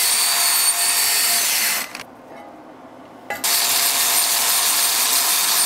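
Angle grinder with a wire wheel buffing a steel weld root clean for inspection: a steady high whine with scratchy hiss. It stops about two seconds in and starts again about a second and a half later.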